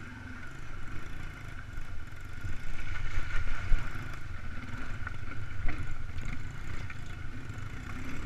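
Mini bike engine running on the move over a rough, rocky dirt trail, louder from about two seconds in, with scattered clattering knocks from the bike over the bumps.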